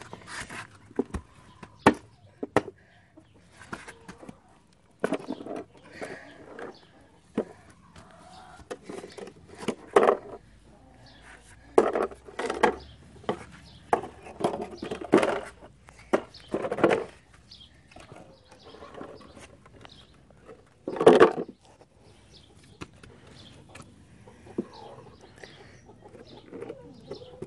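A hoe striking and scraping in hard-packed dirt in a series of sharp knocks, then chopping and prying at a buried metal tin box, its blade knocking against the tin. The loudest strike comes about two-thirds of the way through.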